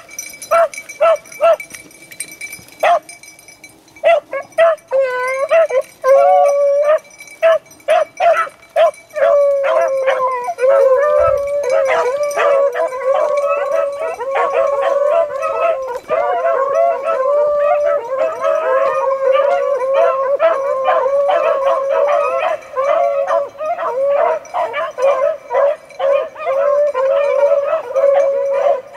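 A pack of beagles giving tongue on a rabbit's trail. It starts with a few short, separate barks, moves into drawn-out howling bawls about five seconds in, and from about nine seconds the whole pack is baying together in a continuous, overlapping chorus.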